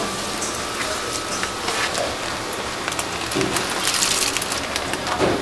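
Dried whole spices poured from a bag into a large stockpot of water, the grains pattering onto the surface like rain, thickest about four seconds in.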